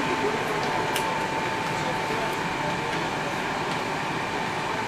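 Inside a Metrowagonmash 81-765 'Moskva-2019' metro car at a station: the steady hum and hiss of the car's ventilation and electrical equipment, with a steady whine and a few faint clicks.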